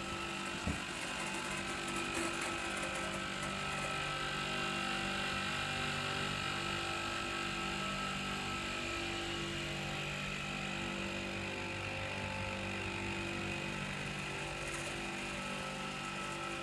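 Clarke Shhh low-noise air compressor running with its three pump motors, a steady hum of several tones. One sharp click under a second in.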